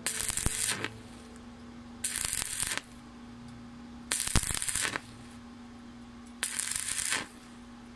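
Stick-welding (SMAW) arc crackling in four short bursts about two seconds apart, each under a second long, with a steady low hum between them. The arc is struck and broken again and again, an on-off stitch technique for welding thin 1.5 mm square tube without burning through.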